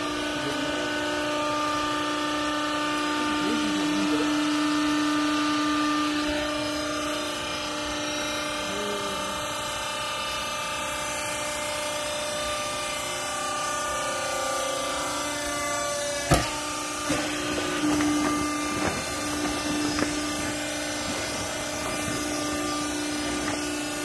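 Vertical hydraulic wiper baler's electric motor and hydraulic pump running with a steady hum and whine as the press works. One sharp knock about 16 seconds in, then a few lighter knocks.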